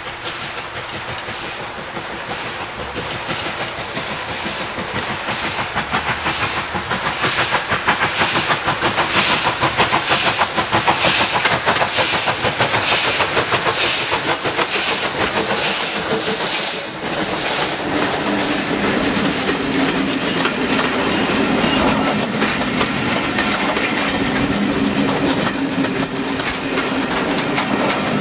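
Rebuilt Bulleid Pacific steam locomotive, 34027 Taw Valley, working hard as it approaches, its rapid exhaust beats growing louder over the first ten seconds or so. From about 17 s in, the Pullman coaches roll past with wheels clicking over the rail joints and a steady rumbling hum. A bird chirps faintly a few times early on.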